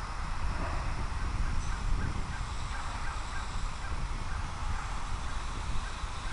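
Strong, gusty wind buffeting the microphone, a steady low rumble, with a constant higher-pitched whirring hiss over it.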